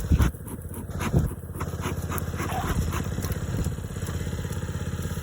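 Small engine idling steadily with an even low pulse, with two short loud sounds near the start.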